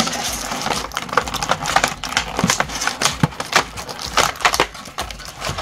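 Thin clear plastic packaging crinkling and crackling as it is handled, with a dense, irregular run of sharp clicks.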